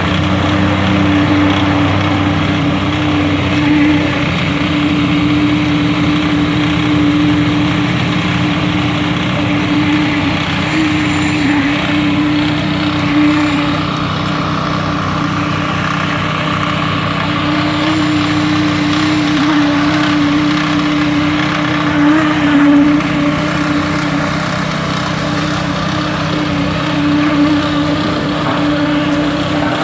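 A small engine running steadily at constant speed, with a strong steady hum.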